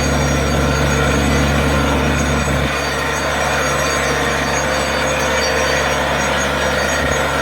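Borewell drilling rig running steadily: a low engine hum under a loud rushing hiss as compressed air drives water up out of the new bore. The low hum eases a little about three seconds in.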